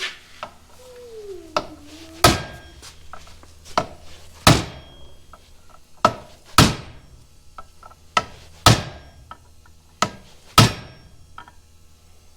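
Hammer blows driving a part through a tractor's PTO housing during teardown: five heavy strikes about two seconds apart, each with a lighter tap just before it.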